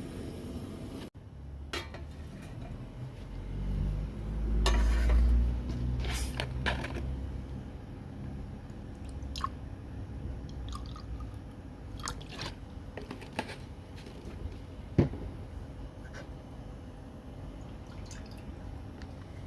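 Cooking sounds: a low rush of liquid swelling for a few seconds, about four seconds in, then scattered clinks and taps of cookware and utensils.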